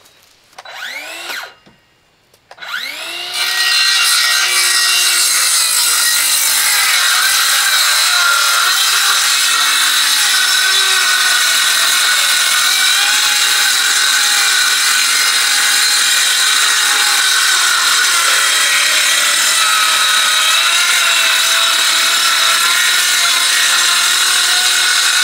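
Handheld circular saw cutting a long run through a sheet of plywood on sawhorses. It whines up briefly about a second in, then starts again and cuts steadily for the rest, its motor pitch wavering slightly as the blade loads in the wood.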